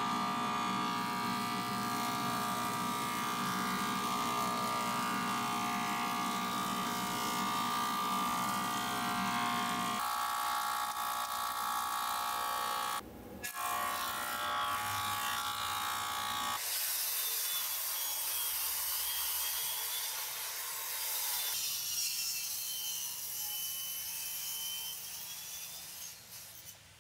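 A thickness planer runs with a steady motor hum while planks are fed through it, for roughly the first sixteen seconds, with a brief break partway. Then a handheld circular saw makes a hissing cut along a long wooden plank, with a wavering whine.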